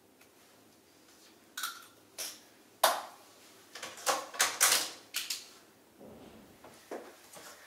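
Irregular clicks and knocks of small hard objects handled on a hard surface, like makeup items being put down and put away. About ten sharp taps starting a second and a half in, some with a short ring.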